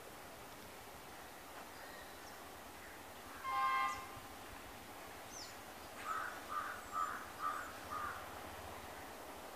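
Quiet outdoor background with faint bird chirps. A distant train horn sounds once, briefly, about three and a half seconds in, from the approaching Class S14 express. From about six seconds in, a crow caws five times in quick succession.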